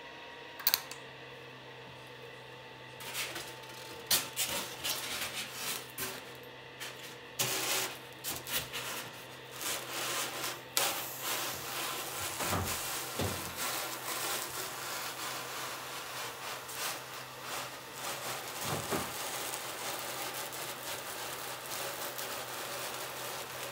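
A sharp click as a clamp goes onto a car battery terminal, then polystyrene foam slabs scraping and squeaking as they are slid across a wooden table through a hot-wire foam cutter, with irregular rubbing and a few knocks over a faint low hum.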